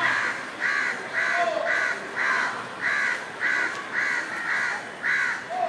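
A crow cawing over and over, short harsh caws at about two a second.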